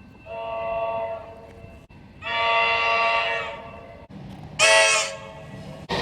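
Comeng electric train horn sounding three separate blasts, the background changing abruptly between them. The first two are held for about a second each, and the last is shorter, louder and higher-pitched.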